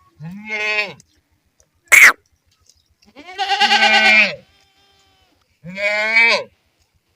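Goat bleating: three drawn-out, wavering bleats about a second each, with a short, sharp, louder call about two seconds in.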